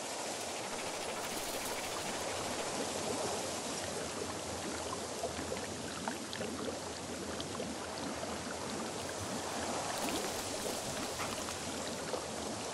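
Steady watery noise with fine crackles running through it.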